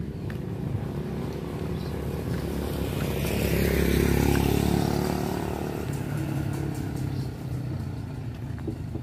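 Street traffic, with a motor vehicle passing close by: its engine and tyre noise swell to a peak about four seconds in and then fade away.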